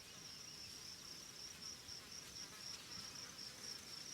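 Faint outdoor insect chorus: a steady, fast-pulsing high trill, typical of crickets, over a light hiss.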